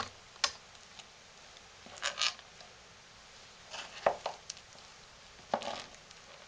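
Scattered light knocks and clicks, about five spread over several seconds, with the loudest about four seconds in. They come from a paddle, a tool and a divider board knocking and scraping in a lined loaf soap mold while thick hot-process soap is packed in.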